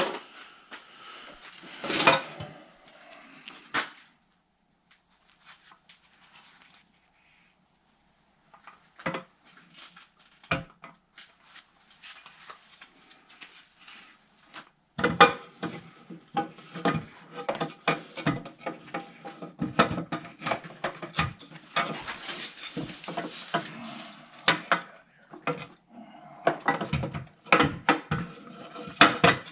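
Hand tools and metal engine parts clinking and clattering as they are handled, with scattered sharp knocks. There is a quiet stretch in the middle, then almost continuous clatter over the second half.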